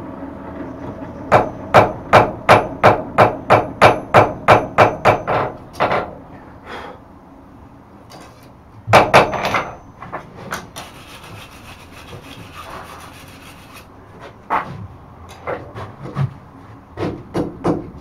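Blacksmith's hand hammer striking a red-hot bar on an anvil: a quick, even run of blows at about three a second for several seconds, a few heavier blows around the middle, then scattered lighter blows near the end.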